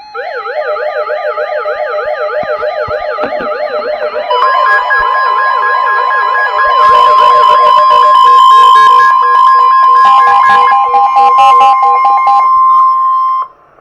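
Several NOAA weather radios sounding their alert alarms at once for a severe thunderstorm warning. A fast warbling siren comes first; from about four seconds in, the steady weather-radio warning tone and other beeping tones join it. Everything cuts off abruptly just before the end.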